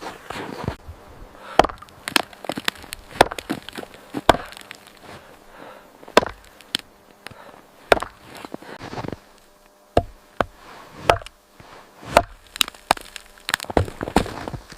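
A run of sharp, irregular knocks and cracks, roughly one or two a second, with some clustered close together.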